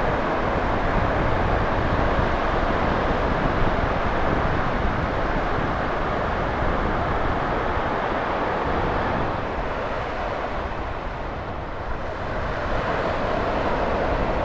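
Steady rushing roar of ocean surf, which eases off a little about ten seconds in and then builds again.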